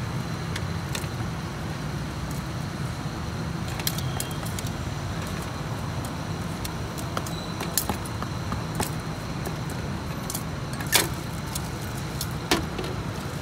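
Kitchen-utensil clatter: a cleaver, tongs and a steel bowl knocking and clinking on a wooden chopping board as grilled pork giblets are chopped and scooped, in scattered sharp clicks with the two loudest near the end. Under it runs a steady low rumble of road traffic.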